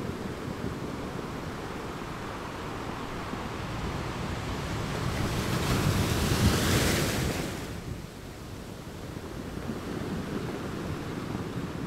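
Rushing wind-and-surf noise. It swells to a louder, brighter rush in the middle and falls back about two-thirds of the way through.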